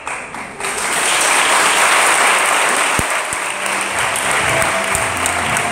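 Audience applauding, the clapping swelling in about a second in and continuing, with music coming in quietly underneath about halfway through.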